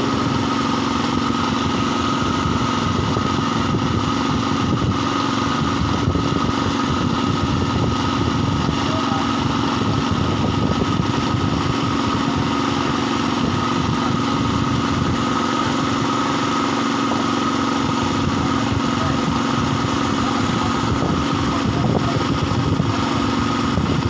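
A small engine running steadily at a constant speed, with an even, unchanging tone throughout.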